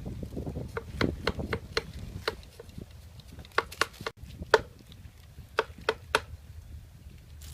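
Chopping with a blade on wood: about a dozen sharp, irregular strikes, bunched in the first two seconds and again in the middle.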